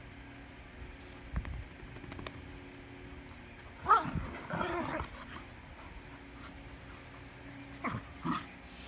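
Irish Terriers play-fighting: a sharp yap about four seconds in, a short cluster of vocal sounds just after it, and two quick yaps near the end.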